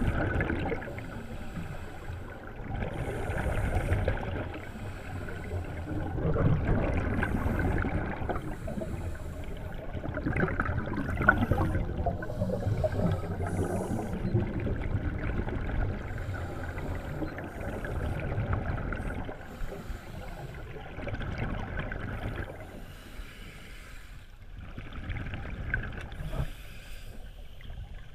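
Scuba divers breathing through their regulators underwater: muffled rushing surges of exhaled bubbles and the regulator, coming back every few seconds, heard through the camera's underwater housing.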